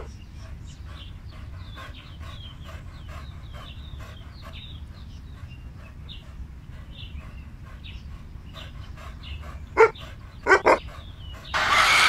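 Faint small-bird chirping over a low steady hum, as outdoor ambience. About ten seconds in come three loud short cries, one and then a quick pair.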